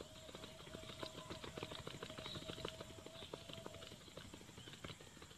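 Quick, rapid footfalls of two people doing high knees on grass. A steady tone sounds in the background and stops about four seconds in.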